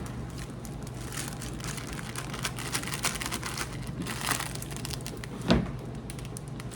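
Quick crinkling and clicking from hands working with packaging and a bowl while making cake mix, with one sharp knock about five and a half seconds in.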